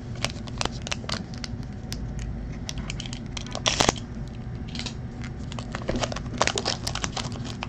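Foil trading-card pack wrapper crinkling and crackling in the hands as it is handled and opened, in many short sharp crackles, with a louder rustle about four seconds in.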